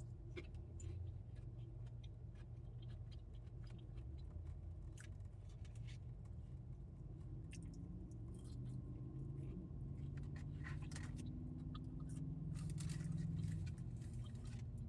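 A person chewing fried food, with small wet mouth clicks and crunches, faint over a low steady hum.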